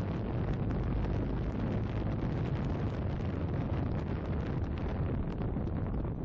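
Wind buffeting the microphone over the low, steady running of a Honda Silver Wing GT600 scooter's parallel-twin engine and road noise, ridden at low speed.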